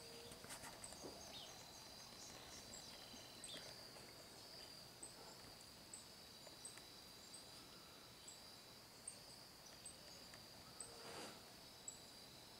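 Faint outdoor ambience: a steady high-pitched insect drone, with a short high chirp repeating a little more than once a second and a few faint ticks.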